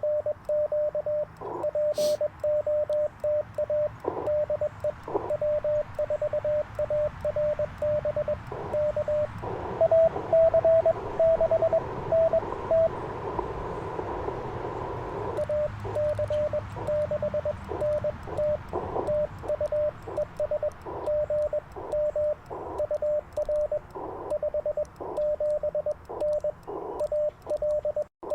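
Morse code (CW) from an Icom IC-705 transceiver: a keyed tone of dits and dahs, with receiver hiss popping up in the gaps between the characters. About ten seconds in, a slightly higher, louder keyed signal comes through for about three seconds over steady hiss.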